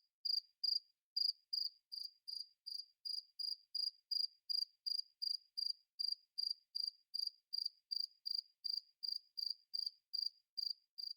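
A cricket chirping steadily: short, high chirps about three a second, evenly spaced.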